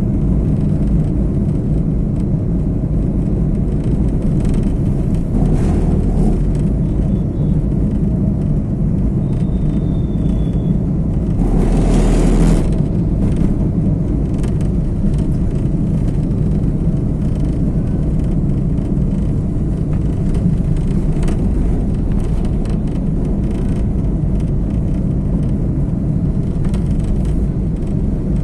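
Car driving along a road: a steady low rumble of road and engine noise. A louder rushing swell lasting about a second comes about twelve seconds in.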